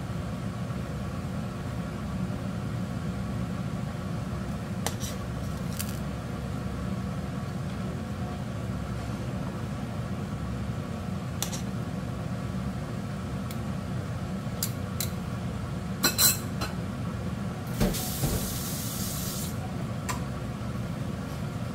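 A slotted metal skimmer clinks against a large stockpot of boiling chicken broth several times, over a steady low rumble. The loudest clinks come a little past the middle, followed by a brief hiss of about a second and a half.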